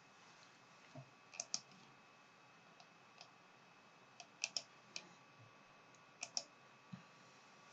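Faint scattered clicking over near-silent room tone: about a dozen short, sharp clicks, several in quick pairs, like keys or buttons being pressed.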